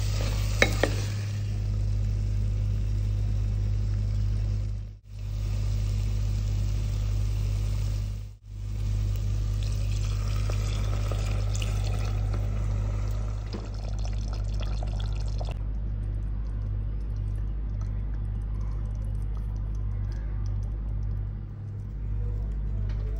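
Chicken curry cooking in a pot: the chicken and spice paste sizzling as it is stirred, then the gravy bubbling at a boil after the water goes in. A steady low hum runs underneath, and the sound cuts out briefly twice.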